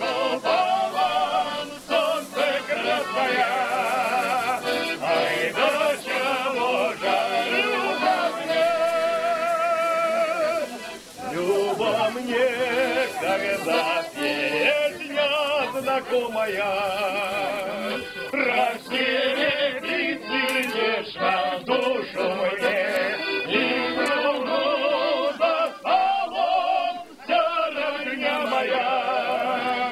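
Background music: a group of voices singing a Cossack folk song in long, wavering held phrases, with a short break between phrases about eleven seconds in.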